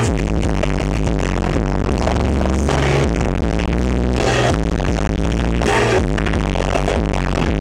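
A live band plays loud music with a heavy bass line, recorded on a handheld camera. The sound is harsh and distorted.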